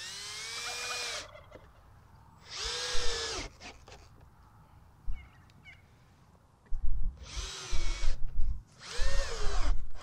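Cordless drill driving screws into wooden boards in four short runs, each rising and then falling in pitch. Heavy low thumps come in with the last two runs.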